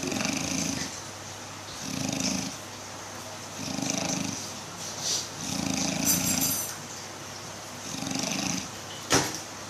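A person snoring, a rough snore about every two seconds, five in all. A sharp click sounds near the end.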